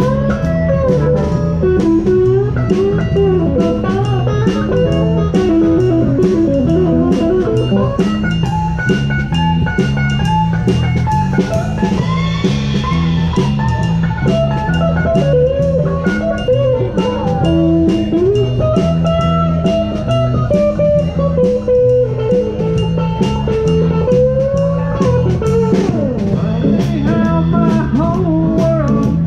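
Live rock trio playing an instrumental stretch with no vocals: an electric guitar plays a lead line that bends up and down over bass guitar and a steady drum-kit beat.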